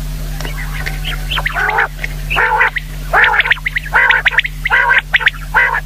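Common quail calling: a run of about six short, nasal calls, one roughly every 0.7 seconds, beginning about a second and a half in, over a steady low electrical hum.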